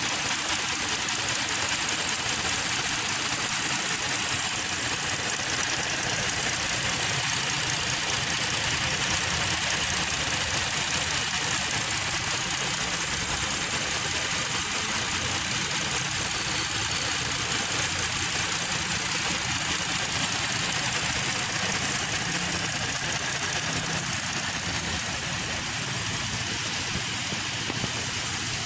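Ford Explorer's 3.5-litre V6 idling steadily after a top-end overhaul.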